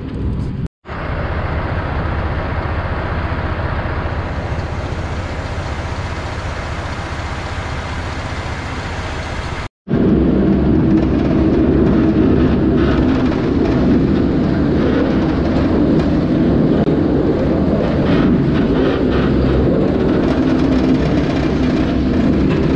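Loaded log truck driving, its diesel engine and road noise picked up by a camera mounted on the truck beside the logs. There are brief dropouts about one second and about ten seconds in, and it is louder after the second.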